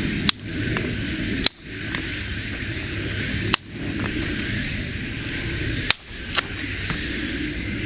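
Dry wooden sticks snapped by hand into short lengths of stove fuel: four sharp cracks spaced a second or two apart, with a few smaller twig snaps between them.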